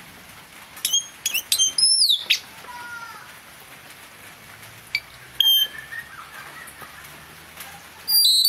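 Blue-rumped parrot calling in short, shrill, high-pitched notes: a quick burst of several calls about a second in, a couple more near the middle and another burst near the end. It is a decoy parrot calling to lure wild birds of its kind.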